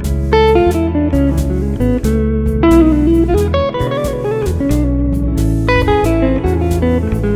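Background music: a blues-style tune led by guitar, over a bass line and a steady beat.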